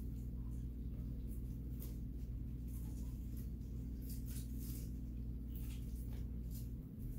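A steady low hum, with faint scattered ticks and rustles over it; the hum dips briefly near the end.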